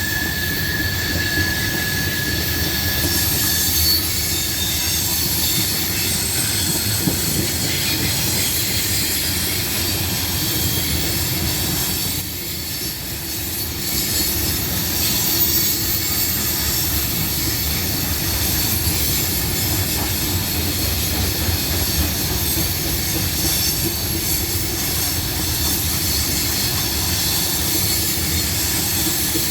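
Grain train's freight cars rolling past steadily, their wheels squealing with several high-pitched tones over a low rumble; one squeal fades out in the first few seconds.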